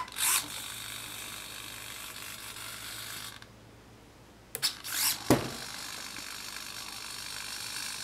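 Electric retract units and gear-door servos of an RC P-51D Mustang model whirring steadily for about three seconds as the landing gear cycles. Then come a few clicks and a sharp knock of a transmitter switch and the gear moving. The whirring then runs again for about three seconds as the gear goes back the other way.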